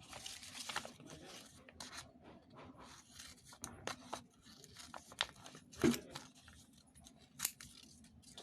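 Scissors cutting paper, with paper and tape rustling and tearing: irregular snips and crinkles, the loudest just before six seconds in.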